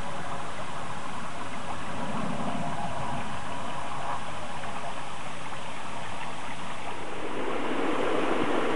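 Shallow stream water running over a stony bed, a steady rushing. About seven seconds in, the rushing turns lower and a little louder.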